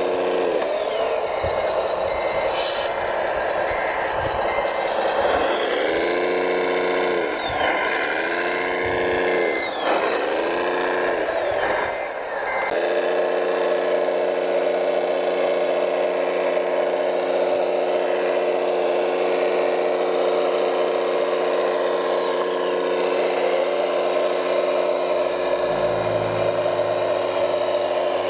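Electric drive and hydraulic pump of an RC construction machine whining steadily. In the first half the pitch dips and recovers several times, as under changing load, then it holds level.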